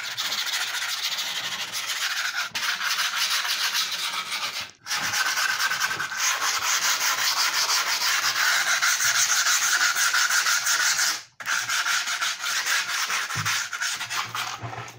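A leftover strip of skateboard grip tape rubbed quickly back and forth over the trimmed edge of the grip tape on a skateboard deck, sanding the cut edge so it sticks down to the board. It makes a continuous scraping that stops for a moment twice, about five and eleven seconds in.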